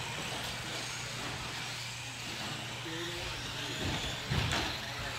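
RC cars racing on an indoor off-road track, a steady whir of motors and tyres on the turf, with a couple of low thumps about four seconds in.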